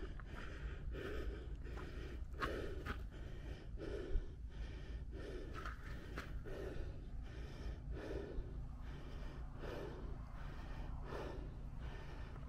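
A hiker breathing hard on a steep trail, in quick regular breaths, about three every two seconds, with faint footsteps on gravel.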